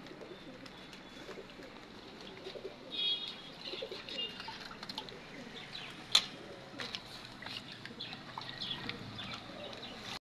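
Birds chirping and calling in short, scattered notes, some high and some lower. A single sharp click about six seconds in is the loudest sound.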